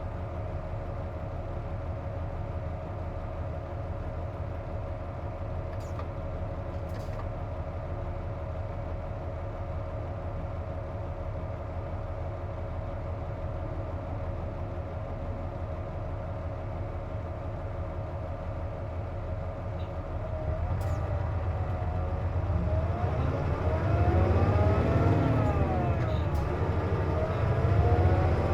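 Inside a KC-JP250NTN city bus: the engine idles steadily with a constant whine, then about 20 seconds in the bus pulls away. The whine rises and falls with the engine revs and the sound gets louder. The air conditioning is running, and the uploader names it as the cause of the abnormal noise.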